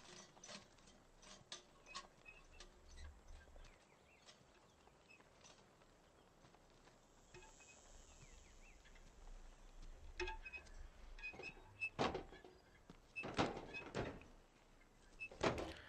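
Sparse footsteps and small knocks over a faint background, growing louder and more frequent in the last several seconds.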